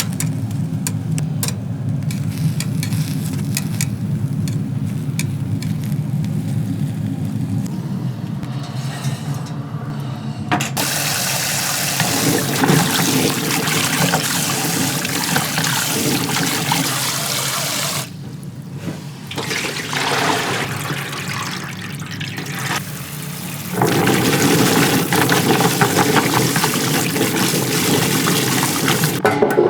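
Tap water running into a sink with splashing. It starts about a third of the way in, drops away for a few seconds past the middle, then comes back louder.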